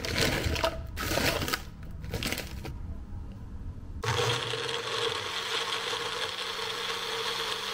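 Frozen raspberries clattering into a plastic blender cup. About four seconds in, a Magic Bullet personal blender starts up and runs steadily with a constant whine, blending the fruit into a smoothie.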